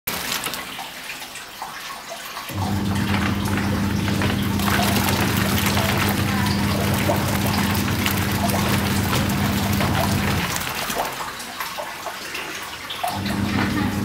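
Top-loading washing machine agitating a load of clothes in soapy water, with water splashing and a hose running into the tub. The motor hums for about eight seconds, stops for two or three seconds, then starts again, the wash action's run-and-pause cycle.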